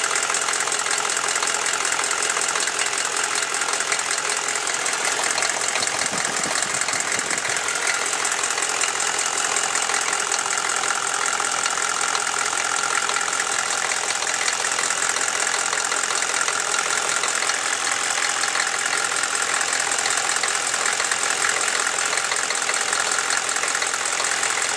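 Chevy 6.5L V8 diesel engine idling warm, with a rapid, even knocking. The owner takes the knock for a valve or a rocker arm needing adjustment.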